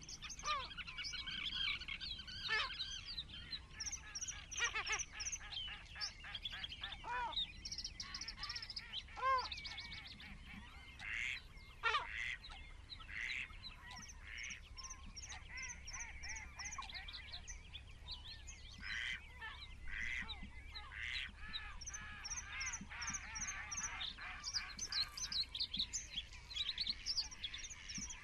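Several wild birds chirping and calling over one another, with quick runs of high repeated notes.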